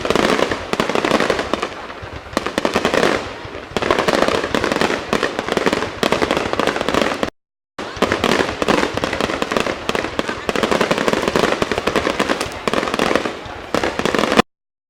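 Fireworks display: a dense run of bangs and crackling bursts overlapping one another, cut off abruptly by two brief gaps of silence, about halfway through and near the end.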